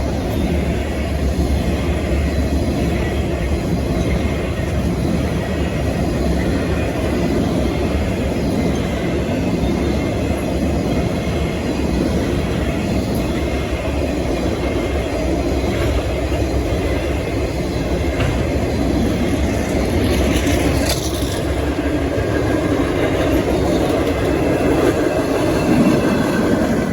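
A train rolling past: the steady, heavy rumble of railcar wheels on the track, with a brief high-pitched screech about twenty seconds in.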